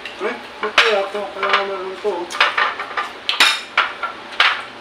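Spoons clinking against ceramic plates and bowls during a meal, about seven sharp clinks at uneven intervals, some ringing briefly.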